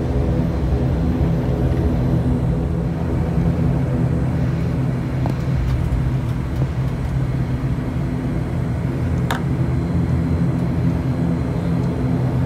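Steady drone of an ATR 72-600's twin Pratt & Whitney PW127M turboprops and propellers, heard from inside the cabin as the airliner taxis. A single short click late on.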